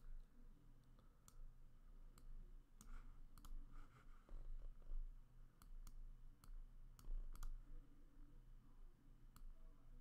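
Faint computer mouse clicks: about a dozen single, sharp clicks at irregular intervals as points are selected and dragged.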